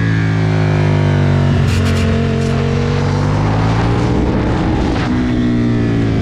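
Aprilia Tuono motorcycle engine at track pace, its pitch rising and falling several times with throttle and gear changes, over a rush of wind noise.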